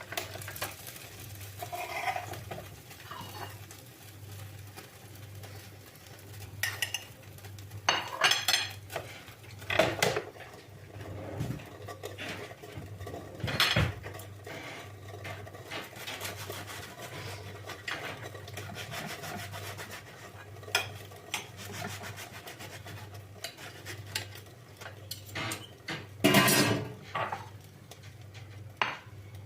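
Kitchen dishes, pans and utensils clinking and knocking as they are handled, in scattered bursts over a low steady hum.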